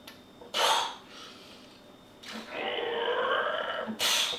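A man's sharp exhale, then a drawn-out groan of mock strain lasting about a second and a half, ended by another sharp exhale, as if straining under a heavy weight.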